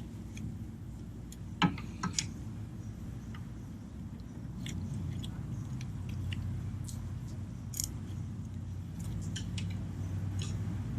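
Scattered sharp clicks and light clinks of a wrench, the belt and engine parts being handled while the accessory belt is worked off, over a low steady hum.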